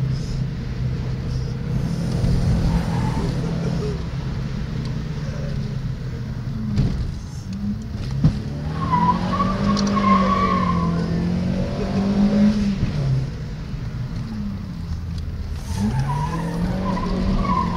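A 200 hp SEAT Ibiza's engine, heard from inside the cabin, pulling hard, with the revs dropping and climbing again at gear changes. The tyres squeal briefly about halfway through and again near the end as the car corners.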